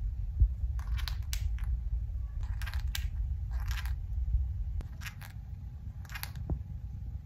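Green-cheeked conure grinding its beak: short dry scraping rasps, repeated irregularly, over a steady low rumble. Beak grinding is the sign of a relaxed, content bird settling down to rest.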